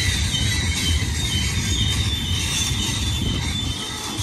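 Freight cars of a Union Pacific manifest train rolling past: a steady low rumble of steel wheels on rail, with a high, wavering squeal from the wheels over it.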